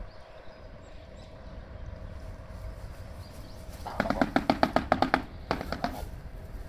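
Shoebill bill-clattering: a rapid, even run of sharp claps, about ten a second, starting about four seconds in and lasting a little over a second, then a shorter run of a few claps after a brief pause.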